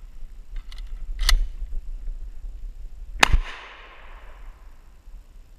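Two shotgun shots about two seconds apart, the second louder, with an echo trailing off for about a second. A few light clicks come just before the first shot.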